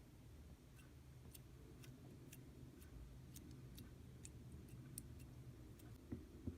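Hand-played slime giving faint, sparse sticky clicks and pops, about two a second, with two soft thumps near the end.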